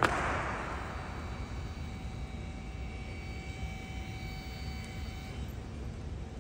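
A single sharp stamp from the honor guard on the marble floor, its echo ringing through the stone hall for about a second, then a steady low rumble with faint held tones.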